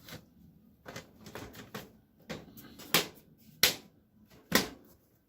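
Plastic clips of a PC case's filter cover clicking as it is pressed back into place. There are a few light handling clicks, then three sharp snaps in the second half.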